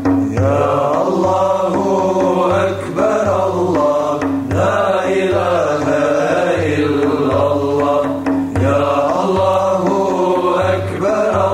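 Choir singing a Bosnian ilahija, an Islamic devotional song, with long wavering vocal lines over a steady low pulsing beat.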